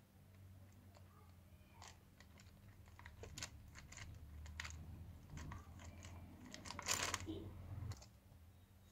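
Faint plastic clicks and light knocks as small RC truck axles with rubber tyres are handled and set down on a concrete floor, with the loudest clatter about seven seconds in, over a steady low hum.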